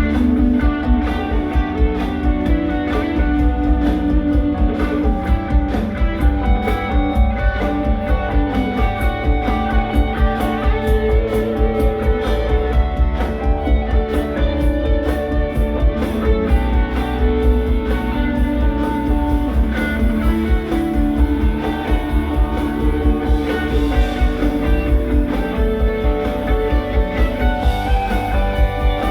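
Live rock band playing an instrumental passage: guitar lines over bass and a steady beat.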